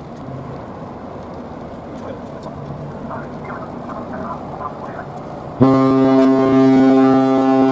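A ship's horn sounds one loud, steady blast that starts suddenly about six seconds in, over a low background of harbour noise.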